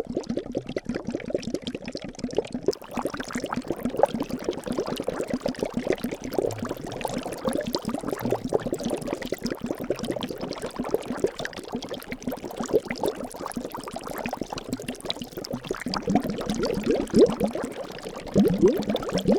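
Liquid bubbling steadily: a dense run of small bubble pops and gurgles, some rising quickly in pitch. A low steady hum joins near the end.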